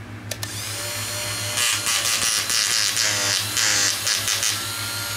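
Small Ryobi 100 V electric power chisel running unloaded with no blade fitted, giving a steady electric buzz. A short click comes just after the start.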